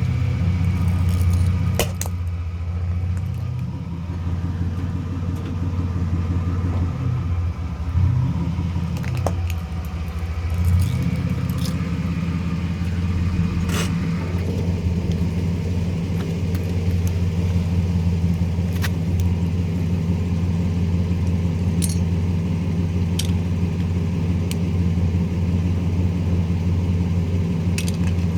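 Motor vehicle running steadily with a low, even hum, with a handful of sharp clicks scattered through.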